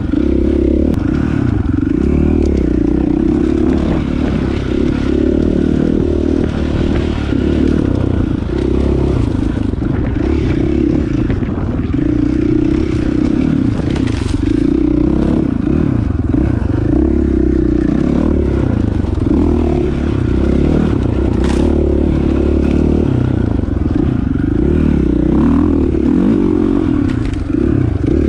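Dirt bike engine running under constantly changing throttle while riding a rough trail, with scraping and clattering over it.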